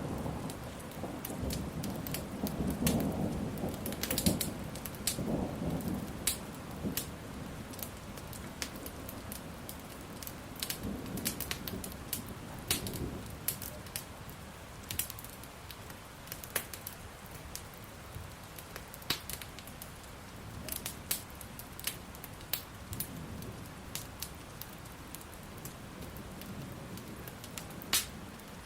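Steady rain with thunder rumbling low through the first several seconds and again briefly in the middle, over the irregular sharp crackles and pops of a burning wood fire.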